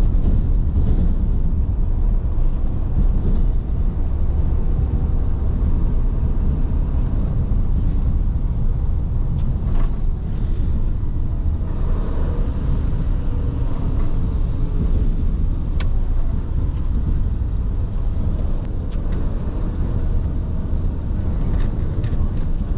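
Tractor-trailer driving at steady speed on the expressway: a continuous low rumble of engine and road noise, with a few faint ticks.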